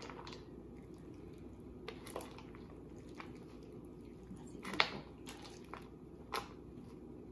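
Shredded green papaya and carrot being stirred with a metal spoon in a disposable aluminium foil tray: soft wet squishing, with a few sharp clicks and scrapes of the spoon against the tray, the loudest about five seconds in.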